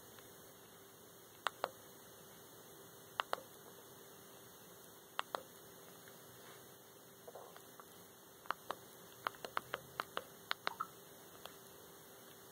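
Remote control buttons clicking as a TV menu is stepped through. First come three spaced double clicks, each a press and release that moves the highlight one step, then a quick run of about a dozen clicks near the end. A faint steady electrical hum lies underneath.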